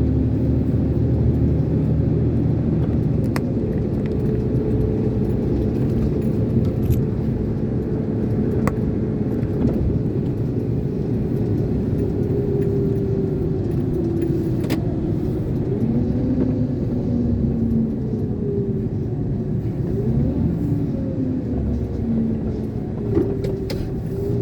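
Iveco concrete mixer lorry's diesel engine running, with road rumble. The engine note shifts up and down in pitch from about halfway through, and there are a few sharp clicks and light rattles.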